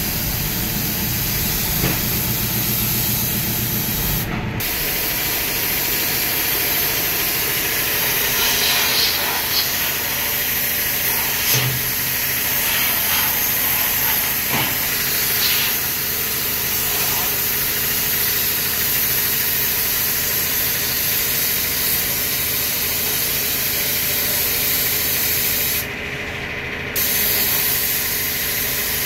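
Compressed-air spray gun with a gravity cup, hissing steadily as it blasts a fine diesel mist over a backhoe loader's engine and tyre to wash off grime. A low machine hum runs underneath, and the hiss breaks off for about a second near the end.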